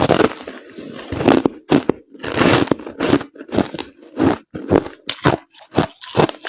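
Crushed ice being bitten and chewed close to the microphone, a run of sharp, crisp crunches that come faster in the second half.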